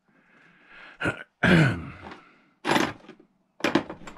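A man's short wordless vocal sounds, a sigh with falling pitch and throat noises, in a few separate bursts. A few sharp clicks come in between, from small metal drill bits being moved about in a plastic tool case.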